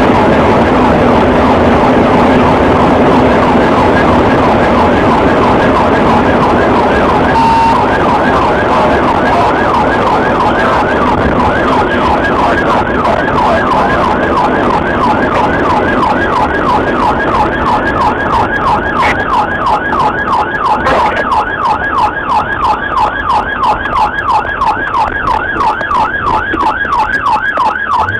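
Police car siren rapidly sweeping up and down, about three times a second, over loud engine and road noise, heard from inside the pursuing cruiser; the sweeps stand out more clearly in the second half.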